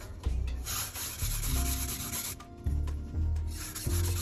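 Steel cleaver blade being rubbed across a whetstone: a long scraping sharpening stroke about a second in, then another near the end.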